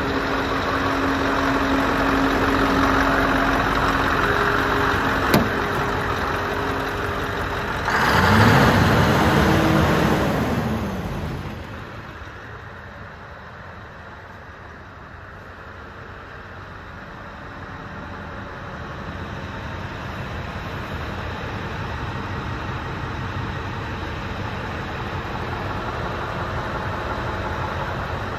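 Scania R620's V8 diesel engine idling, with one brief rev that rises and falls in pitch about eight seconds in. After that it is quieter and muffled, heard from inside the cab.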